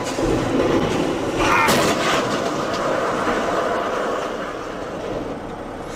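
Semi-trailer truck crashing on the road: a hit right at the start, then a continuous rough scraping and grinding clatter, loudest about one and a half to two seconds in and easing off toward the end.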